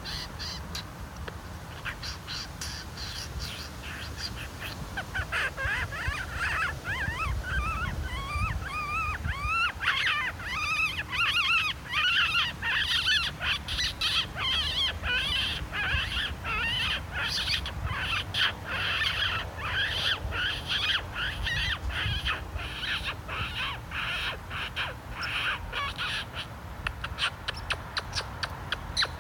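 Small animals making high chirping and chattering calls: wavy twitters at first, then a long run of rapid, evenly repeated chips, several a second, that stop near the end.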